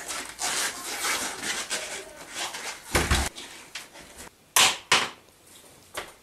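Quick footsteps and scuffing on a wooden floor, a heavy thump about three seconds in, then two sharp wooden knocks as an interior wooden door is pushed open, with a lighter knock near the end.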